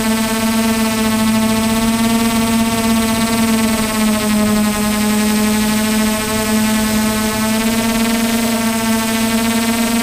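Camera drone's motors and propellers running in flight: a steady, loud whine with many overtones that wavers slightly in pitch, over a hiss.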